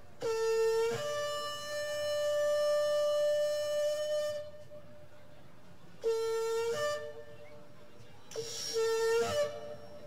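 Shofar blasts. The first starts on a lower note and jumps up to a higher one held for about four seconds. Two shorter blasts follow, about six and about nine seconds in, each stepping from the lower note up to the higher.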